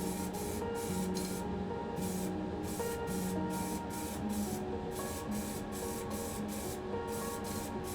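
Background music with held notes and a steady, hissy beat.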